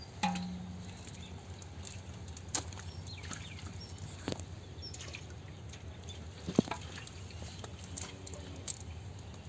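Scattered sharp taps and small wet splashes as fish are handled: picked out of a cast net on wet ground and put into a water-filled metal pot.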